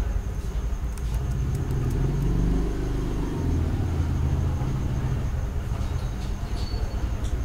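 Low, steady rumbling background noise that swells slightly a couple of seconds in, with a few faint clicks.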